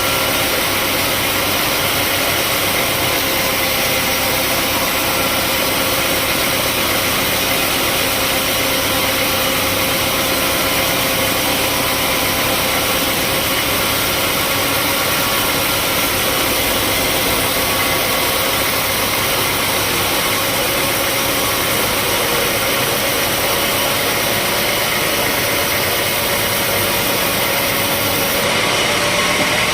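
Sawmill engine running steadily under a continuous hiss, with a faint held tone that drifts slightly in pitch; the hiss brightens a little near the end.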